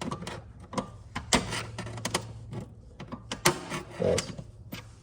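Irregular clicks and knocks of metal being handled, as a filler piece is pushed into place in a golf cart's steel frame.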